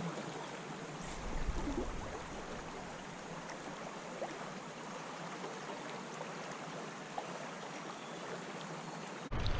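Creek water flowing steadily: a constant, even rush of moving stream water.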